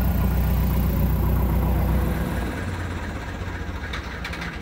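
Light airplane's piston engine running at low power as the plane taxis close by, fading from about two seconds in. A fast ticking starts near the end.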